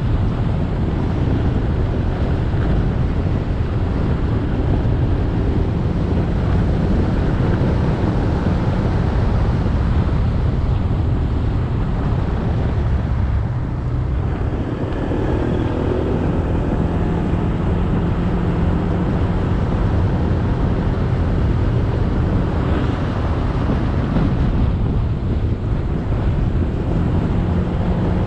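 Motorbike engine running on the move, with wind rushing over the microphone and road noise. About halfway through the sound dips briefly, then a steadier engine note comes through for a few seconds, and again near the end.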